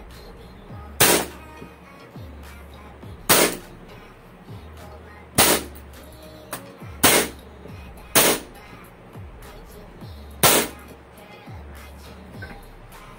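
WE M92 Beretta gas blowback airsoft pistol firing six single semi-automatic shots, one every one to two seconds, each a sharp crack of gas as the slide cycles.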